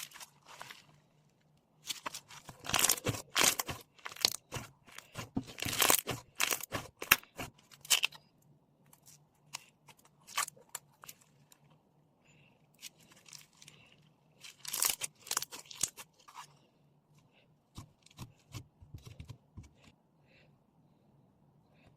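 Foam slime being squeezed and pulled apart by hand, crackling and crunching in dense bursts of tiny pops, with quieter stretches of single clicks between the bursts.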